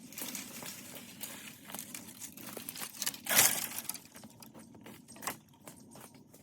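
Dry brush and leaves rustling and crackling, with scattered sharp clicks and one louder rustle a little past three seconds in.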